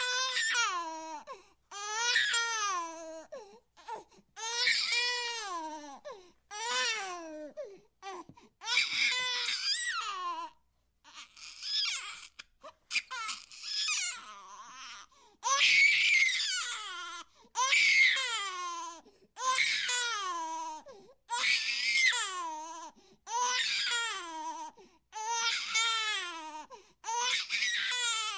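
A baby-like crying sound effect: repeated high wails, each about a second long and mostly falling in pitch, roughly one every two seconds, with a stretch of short broken sobs around the middle.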